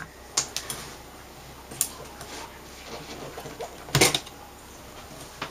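Scattered light clicks and knocks from a metal-framed 17-inch LCD panel being handled and shifted on a work mat, with the loudest knock, a quick double, about four seconds in as the panel is set down.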